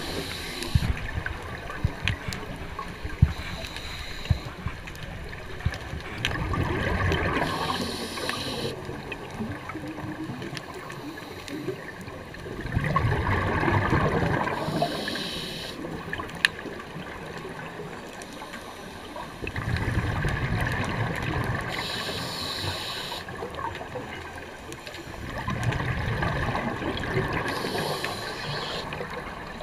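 Scuba diver breathing through a regulator underwater: a gurgling rush of exhaled bubbles, then a short hiss of inhalation, repeating about every six seconds.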